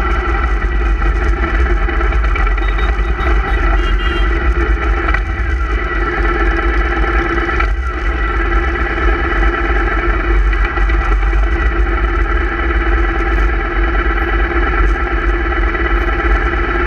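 Motorcycle engine running at steady revs while riding, with a brief change in pitch about five to eight seconds in.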